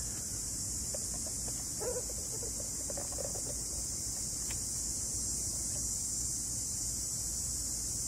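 Steady high-pitched chorus of crickets chirring.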